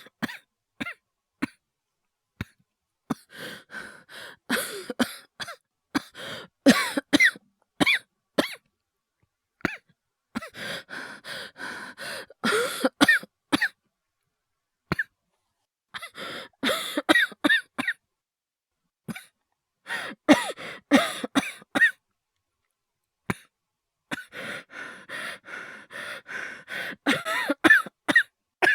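A man's acted coughing: about six fits of several coughs each, two to four seconds long, with silent pauses between them, performed as the cough of someone sick with a cold.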